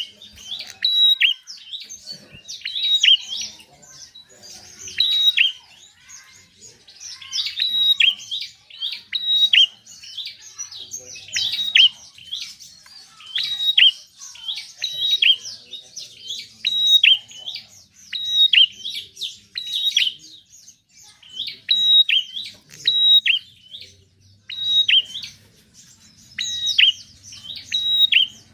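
Prinia (prenjak) singing: bursts of sharp, high chirping notes repeated every second or two, without a break.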